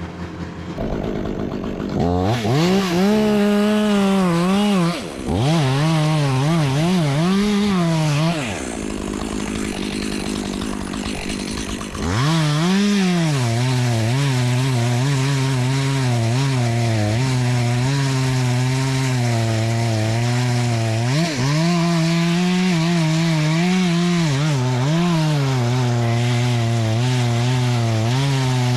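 Two-stroke chainsaw revving up about two seconds in and dropping back twice, then running steadily under load from about twelve seconds on as it cuts through dead oak.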